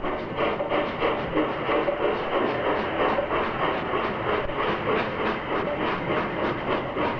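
Czechoslovak class 556.0 heavy freight steam locomotive passing under power with its train. It makes a rapid, even rhythm of beats, about five a second, mixed with the running noise of the wheels on the rails.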